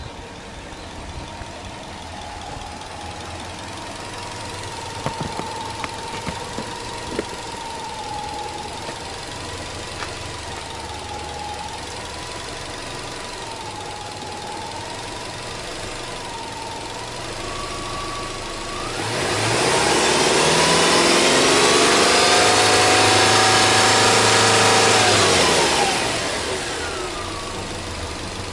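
Subaru Legacy 2.0GT spec B's turbocharged EJ20 flat-four idling steadily, then revved up about two-thirds of the way through, held high for about six seconds, and let fall back to idle.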